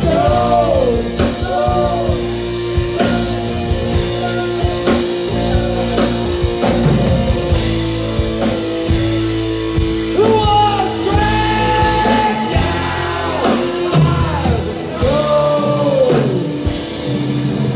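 Live rock band playing: a lead voice sings through a microphone over drum kit, electric guitar and keyboards, with long held notes in the middle.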